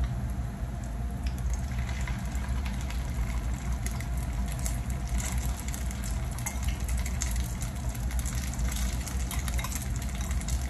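Ground-beef and egg patties (tortang giniling) frying in shallow oil in a pan, sizzling with scattered crackling pops over a steady low rumble.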